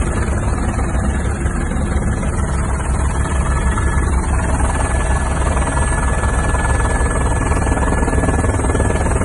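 Helicopter in flight heard from inside its cabin: a loud, steady, heavy low rumble from the rotor and engine, with a thin high-pitched whine held steady on top.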